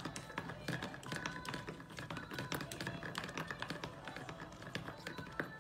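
A suitcase's plastic spinner wheel clicking and rattling as a cat paws and spins it: rapid, irregular light taps. Faint background music underneath.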